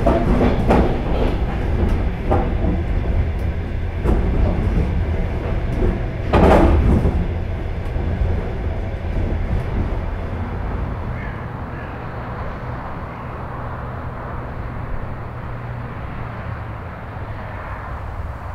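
Moving passenger train heard from inside a carriage: a steady low rumble with wheels clicking over rail joints. A louder burst comes about six seconds in, and the rumble then fades away over the second half.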